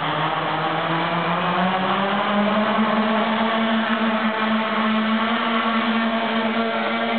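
Quadcopter's four electric motors and propellers whirring steadily while lifting a 3 kg payload of two water bottles. The hum rises in pitch about two seconds in as the motors speed up for take-off, then holds at the higher pitch.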